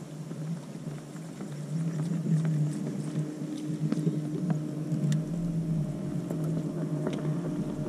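Low steady hum of a boat motor, most likely the bow-mounted electric trolling motor holding the boat along the bank. Small scattered clicks and ticks from the rod and reel sound over it.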